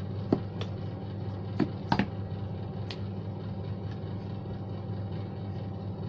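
Light handling clicks from a freshly stripped UTP LAN cable and a crimping tool, about five of them in the first three seconds, over a steady low background hum.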